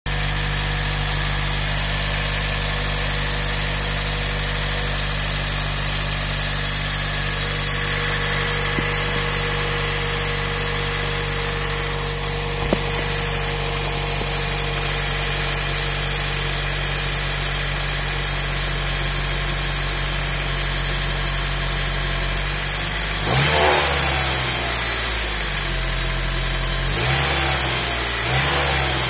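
Honda Civic engine idling steadily with a whine over the engine note. The engine is revved briefly near the end, twice, the pitch rising and falling each time.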